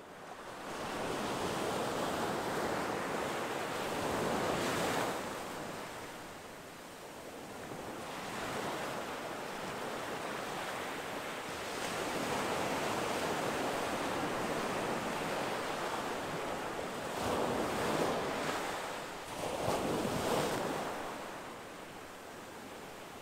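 Waves breaking and washing on a shore, a steady rush that swells and ebbs every few seconds.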